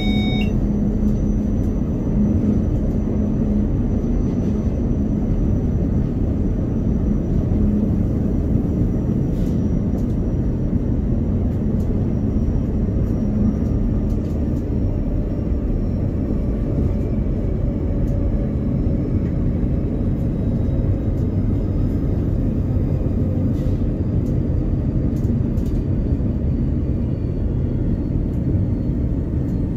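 Steady rumble of a train running along the track, heard inside the driver's cab, with a faint high whine that slowly falls in pitch.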